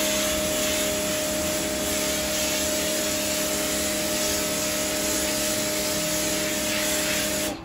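Bosch Aquatak 125 electric pressure washer running with the trigger held, a steady motor-and-pump hum under the hiss of foam spraying from the detergent-bottle nozzle. It cuts off at the very end.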